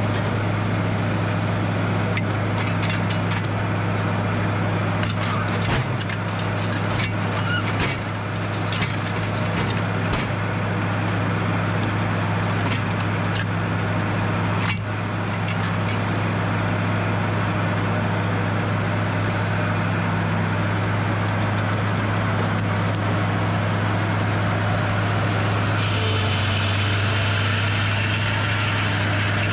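Edmiston hydraulic sawmill's engine running steadily at a constant pitch, with scattered knocks and clicks over the first half. Near the end a higher steady whine joins in.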